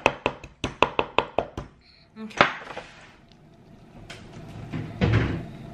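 A 13 oz claw hammer tapping quickly on the thin metal of a mason jar lid over a wooden board, about five light strikes a second, flattening the sharp edges around the punched-out centre hole. The tapping stops after under two seconds and one louder single knock follows.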